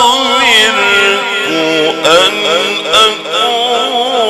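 A male Qur'an reciter chanting in the ornamented Egyptian mujawwad style: one voice in long, drawn-out phrases with quick wavering turns and held notes, amplified through a microphone and sound system.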